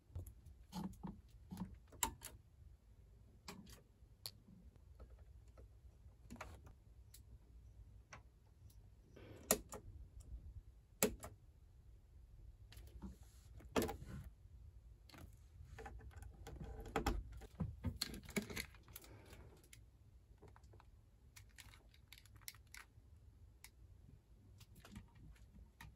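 Scattered clicks and light knocks of hands working a capsule room's fixtures, pressing the switches on a wall panel and handling a small wooden cabinet door, over a low steady hum.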